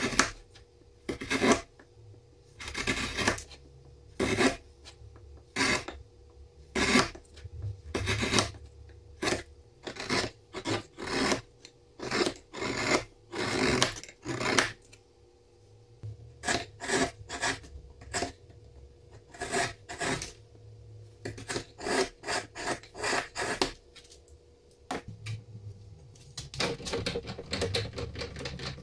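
Wide bench chisel paring quartersawn beech by hand: a series of short scraping strokes, often two or three in quick succession, each lifting a curled shaving.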